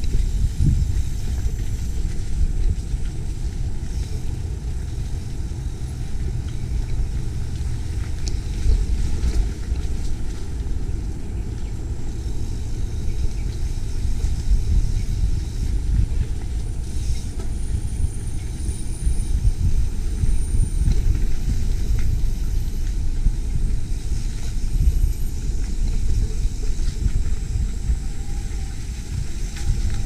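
Low, steady rumble of a mountain bike rolling over a rough dirt trail, picked up by a camera riding on the bike or rider, with wind and small jolts from the bumps.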